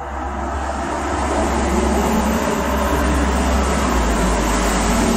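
Road traffic: a passing vehicle's engine and tyre noise swells over the first couple of seconds, then holds loud and steady with a deep rumble underneath.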